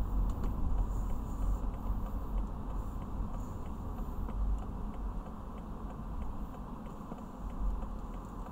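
Steady low rumble of a car's cabin on the move, road and engine noise. A turn-signal indicator ticks about twice a second through the first half.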